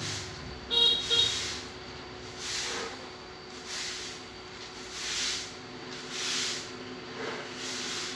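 Two short horn toots about a second in, over a soft hiss that swells and fades about every second and a quarter.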